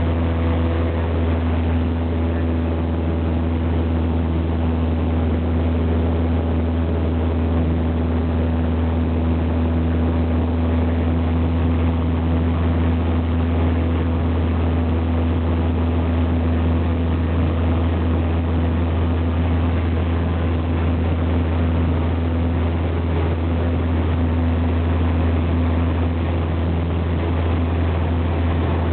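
Cessna 172's piston engine and propeller running steadily in flight, heard from inside the cabin as a loud, even low drone with a steady tone above it.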